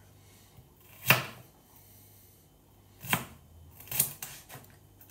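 Kitchen knife slicing bell pepper, the blade knocking on the cutting board: single sharp knocks about one, three and four seconds in, then a few lighter taps.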